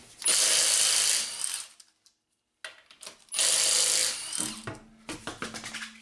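Milwaukee M18 cordless 3/8-inch impact wrench hammering car lug nuts loose in two bursts of about a second and a half and a second, followed by a few lighter clicks.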